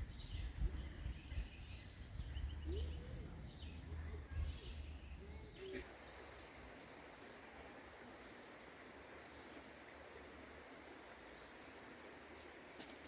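Faint bird chirps over low rumbling outdoor noise. About six seconds in, the sound changes suddenly to an even, steady hiss.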